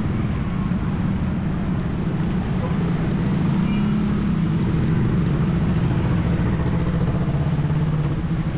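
Heavy, slow-moving road traffic close by: car, jeepney, van, truck and motorcycle engines running together in a steady low drone.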